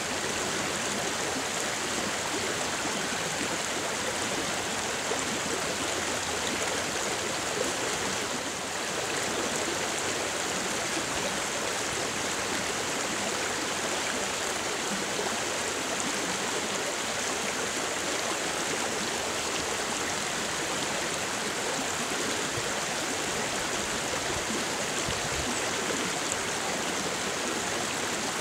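Shallow creek water running steadily, a continuous even rush with no breaks.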